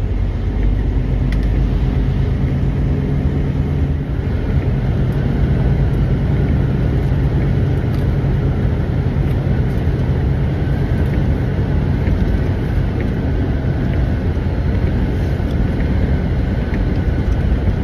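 Steady low rumble of a semi-truck's diesel engine with road noise, as the truck is under way.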